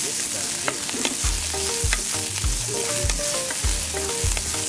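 Diced red onions sizzling as they sweat in hot oil in a frying pan, stirred and scraped with a wooden spatula. A steady low beat of background music runs underneath.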